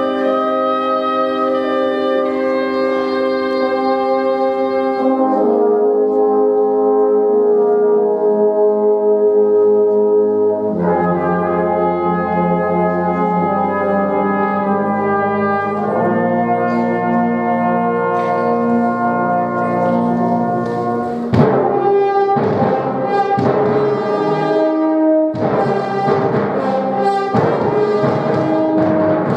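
Brass band music: sustained brass chords that shift every few seconds. About twenty seconds in, a sharp accent starts a rhythmic passage with repeated percussive hits under the brass.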